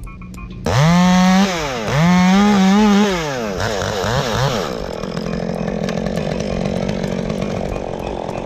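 Chainsaw revved up hard twice, its pitch rising and falling with each throttle burst, then running on more steadily at a lower pitch.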